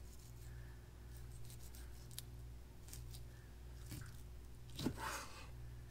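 Faint sounds of a chef's knife slicing the bloodline out of a raw swordfish steak on a plastic cutting board, with a few light taps of the blade on the board, the loudest about five seconds in. A low steady hum sits underneath.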